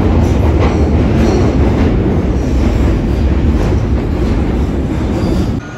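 London Underground train running, heard from inside the carriage: a loud, steady rumble of wheels on the track with a few brief faint high squeals. It cuts off suddenly near the end.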